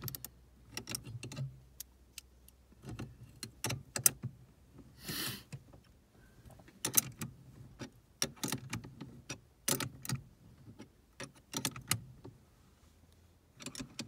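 Irregular metallic clicks and clinks of hand tools and small parts being worked on a car's steering column, with a short rasp about five seconds in.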